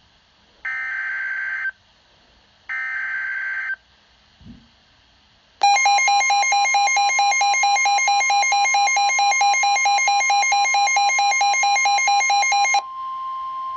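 Emergency Alert System tones. First come two one-second bursts of SAME header data, the warbling modem-like squawk of the alert code. Then an attention signal begins: a loud pulsing alert tone of several pitches lasts about seven seconds, laid over a steady tone that carries on about a second longer.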